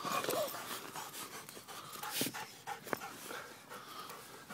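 Border terrier panting close up, with a few short knocks.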